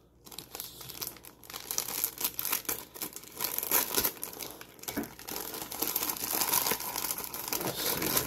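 Clear plastic bag crinkling and rustling as it is cut open with scissors and pulled apart, with quick crackles throughout that build after the first second.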